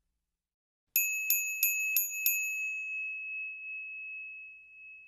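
A small bell struck five times in quick succession, about three strikes a second, then ringing on with one clear high tone that slowly fades.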